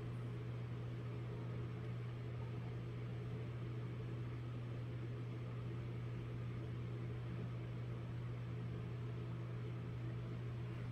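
A steady low hum with a faint hiss, unchanging throughout.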